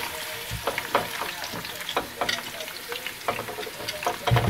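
Pork ribs (tracchie) and sausages sizzling in hot olive oil in a metal pan as they are turned to brown, with frequent crackling pops. A heavier thump near the end.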